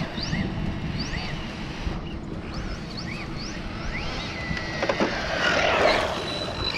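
Arrma Infraction 3S BLX RC car's brushless motor whining in quick rising and falling pitches as the throttle is worked, holding one steady whine for about a second before a click. A louder rushing noise follows as the car comes close.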